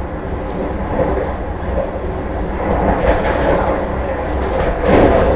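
Moving train running on the rails: a steady rumble with scattered short clicks, growing louder near the end.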